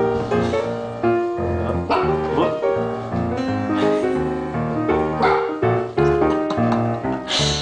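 Piano music, with layered sustained notes and chords. A short noisy burst comes near the end.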